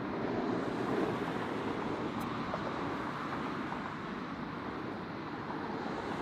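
Jet airliner engines running, a steady rushing noise that swells slightly about a second in, with wind buffeting the microphone.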